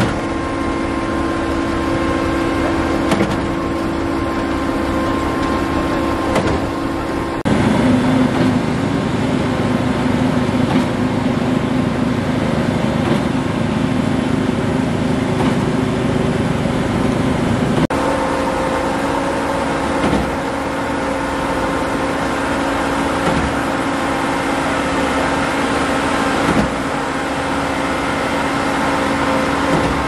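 Truck-mounted concrete pump running steadily, its engine and hydraulics making a constant mechanical drone. The sound shifts abruptly twice.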